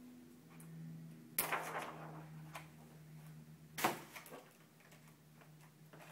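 Clear plastic window film and Scotch tape being handled: rustling and crackling, with two sharp, louder crackles, one about a second and a half in and one near four seconds in. A faint steady hum runs underneath.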